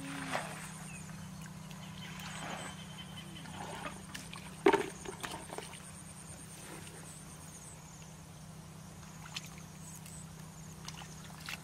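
Hands splashing and sloshing in shallow muddy water while feeling for fish, in irregular bursts with the loudest splash a little before halfway.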